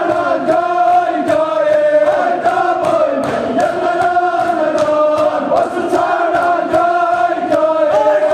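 Men chanting a Kashmiri marsiya, a mourning lament for Imam Hussain, together in long drawn-out notes, with rhythmic hand slaps of matam (chest-beating) about twice a second keeping the beat.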